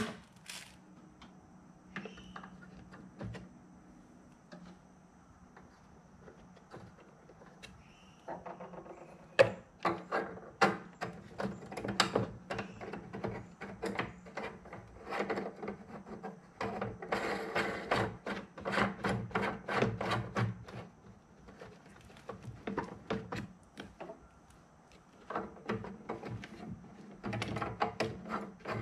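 Quick irregular clicks and knocks of hard plastic parts being handled and pressed into place on a glass aquarium as an overflow box is fitted, sparse at first and coming in dense runs from about eight seconds in, with a pause a little before the end.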